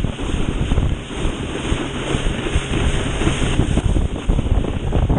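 Heavy wind buffeting on an action camera's microphone, with water rushing under a kneeboard that is being towed at speed behind a motorboat.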